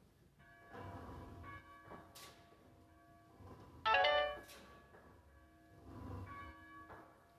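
Church bell tolling slowly, each stroke ringing on in a hum of overtones. About four seconds in there is a brief, louder high-pitched sound.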